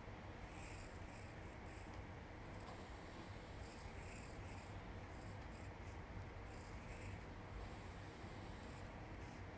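A pencil scratching across sketchbook paper as a line design is drawn: soft, faint rubbing scrapes that come and go with each stroke.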